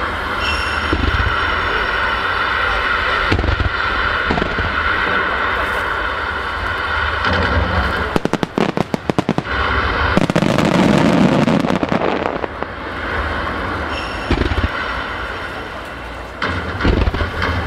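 Star mine fireworks barrage, shells bursting in quick succession. About eight seconds in comes a dense run of rapid crackling, followed by a loud low boom.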